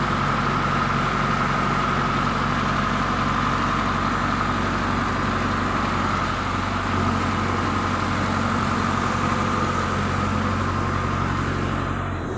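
An engine idling steadily with an even hum, which cuts off suddenly near the end.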